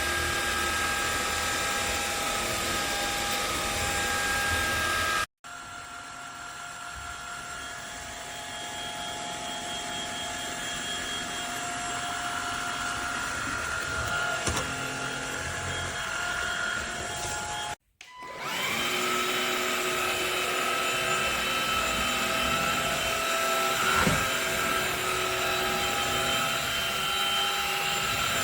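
Cordless stick vacuum cleaner running with a steady motor whine. It plays in three stretches separated by two abrupt cuts; the middle stretch is quieter and slowly grows louder.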